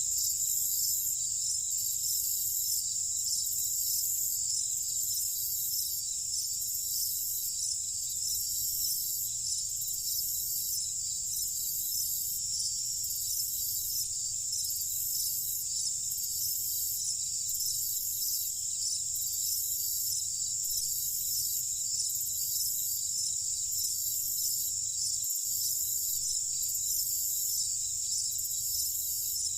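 Night insects, crickets among them, chirping in a steady high-pitched chorus, with a slow, even pulsing in the highest part, over a faint low rumble.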